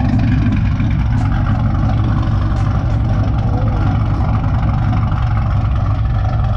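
Pontiac G8 GT's 6.0-litre V8, freshly rebuilt and fitted with a Cam Motion Titan 2 camshaft, idling steadily through longtube headers and a straight-pipe exhaust.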